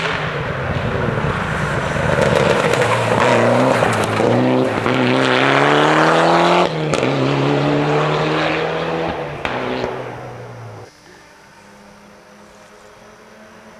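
Rally car engine at full throttle, its pitch climbing and then dropping back with each upshift through several gear changes. About eleven seconds in the sound drops abruptly to a faint, steady distant engine.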